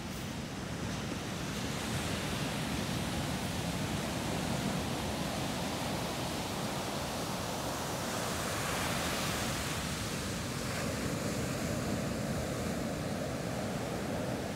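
Ocean surf breaking and washing up a sandy beach in a steady rush of water. It swells for a couple of seconds past the middle.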